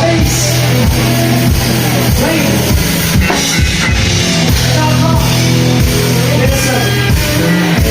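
Rock band playing loud with a full drum kit, bass and electric guitar, the drums keeping a steady beat under held notes.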